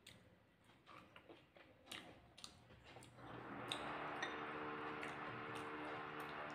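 Soft clicks and taps of eating by hand from a plate. About three seconds in, an electric drill in the flat upstairs starts up and runs steadily.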